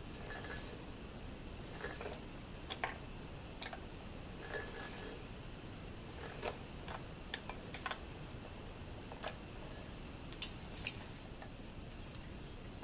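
Scattered sharp metal clicks and clinks from snap-ring pliers working a ring onto a steel gear shaft. The two loudest clicks come close together about ten and a half seconds in.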